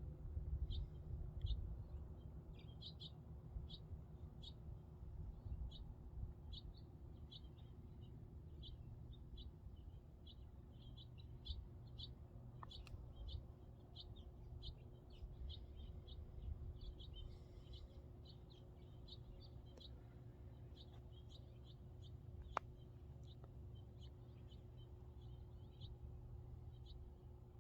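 Small birds chirping: short, high chirps repeated irregularly, several a second, over a faint low rumble, with a single sharp click near the end.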